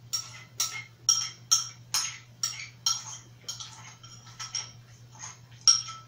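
A metal spoon clinking and scraping against a bowl as rice is scooped up, about two clinks a second, each with a short ring. The sharpest clink comes near the end.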